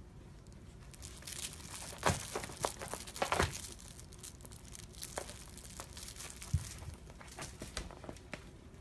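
A cat clawing, biting and kicking at a fabric plush kick toy: scratchy rustling with irregular sharp clicks, busiest between about two and three and a half seconds in.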